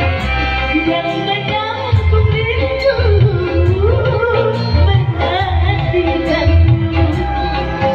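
A live dangdut band playing loud amplified music with a steady drum-and-bass beat and keyboards, while a female vocalist sings a bending, ornamented melody line.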